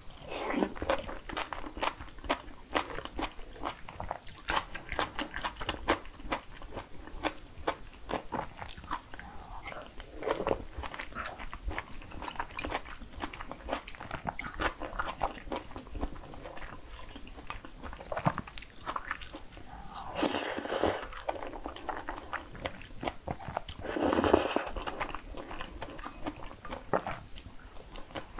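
Close-miked chewing of jajangmyeon, black-bean-sauce noodles: a steady run of wet chews and mouth clicks. In the last third come two louder, longer noodle slurps a few seconds apart.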